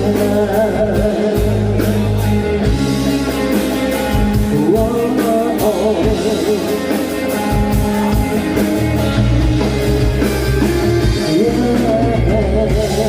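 Live band playing a Thai pop-rock song: a steady drum beat, bass and electric guitar under a wavering melody line, with no clear sung words.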